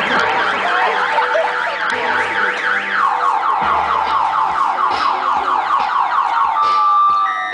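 Electronic siren wailing in quick up-and-down sweeps, several a second, louder from about three seconds in. Near the end it gives way to steady electronic tones.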